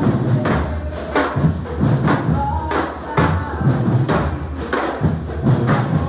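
Brazilian street drum band playing, drums struck with sticks in a steady rhythm with deep beats about twice a second.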